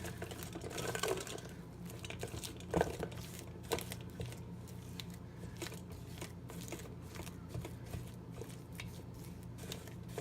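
A utensil scraping and clicking against a bowl as warmed peanut butter is mixed and folded into soft vanilla ice cream, in irregular strokes with a few louder knocks about three and four seconds in.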